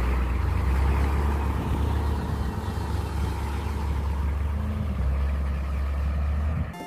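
A steady, low engine rumble, as of a motor vehicle idling, holding an even level throughout.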